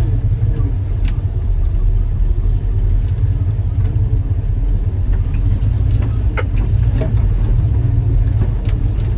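Jeep engine running low and steady while it crawls over a rocky trail in low range, with scattered knocks and rattles as the vehicle jolts over rocks.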